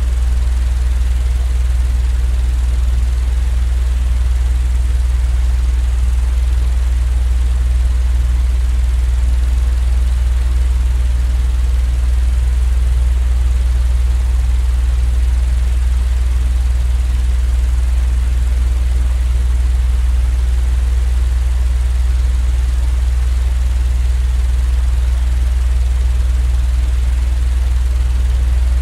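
Steady, unchanging low droning rumble with a faint hiss above it, a continuous sleep-aid white-noise track.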